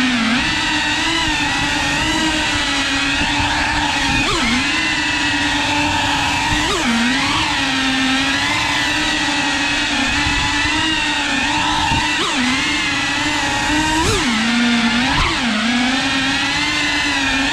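FPV racing quadcopter's brushless motors and propellers buzzing in flight, a steady high-pitched drone sound. Its pitch dips and swoops back up every few seconds as the throttle is chopped and punched.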